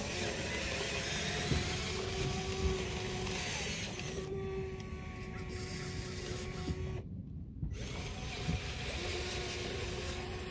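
Small electric motors of an RC Volvo EC160E excavator model whining steadily as the boom and arm move, in a few stretches with short pauses between.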